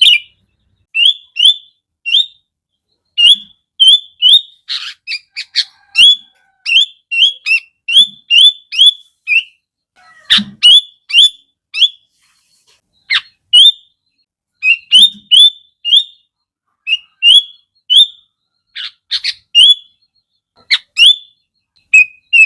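Sooty-headed bulbul singing: short, clear, rising whistled notes in quick runs, split by brief pauses, with a few sharp downward-sweeping calls mixed in.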